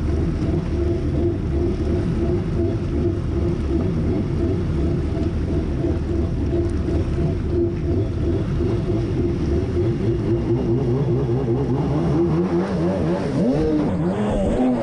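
1990 Kawasaki JS550SX stand-up jet ski's two-stroke engine running at speed through its Coffman half-pipe exhaust, holding a steady pitch. Near the end the pitch swings up and down as the throttle is worked.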